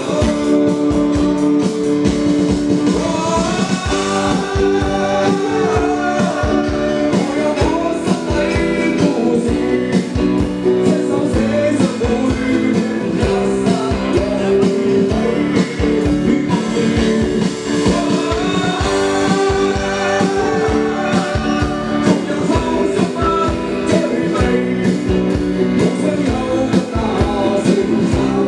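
Live rock band playing through a PA system: a sung lead vocal over strummed acoustic guitar, electric guitar, keyboard and a steady drum beat.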